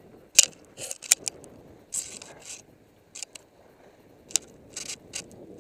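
Skis scraping over packed snow during turns: a series of short, irregular hissing scrapes, with a few sharp clicks among them.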